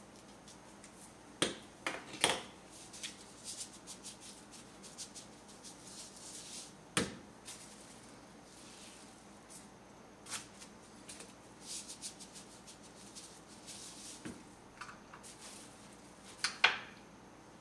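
Plastic cling film crinkling and crackling as it is handled and peeled off a beef steak. It comes in scattered bursts, with the sharpest crackles about a second and a half in, around seven seconds, and near the end.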